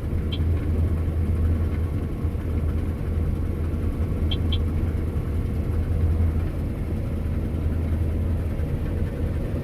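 Combine harvester running steadily under load while reaping a thick, heavy barley crop, a constant low drone. Short high beeps sound once near the start and twice in quick succession about four and a half seconds in.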